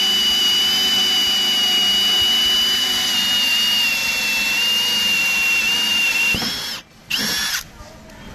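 Milwaukee M18 Fuel Gen 3 cordless hammer drill spinning a 1-1/4 inch Hole Dozer hole saw through a wooden board: a steady high motor whine whose pitch sags slightly as the saw cuts deeper. Just before seven seconds in it stops, then gives one short spin of under a second.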